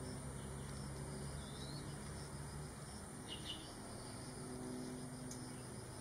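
Outdoor ambience dominated by insects: a steady high-pitched drone and a pulsing, chirping insect trill, over a faint low hum. A short faint rising chirp comes about a second and a half in, and another brief chirp comes about three and a half seconds in.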